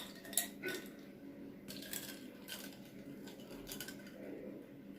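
Ice cubes clinking in a jar as a cold drink is stirred with a stick: a few light clinks in the first half, then fainter ones.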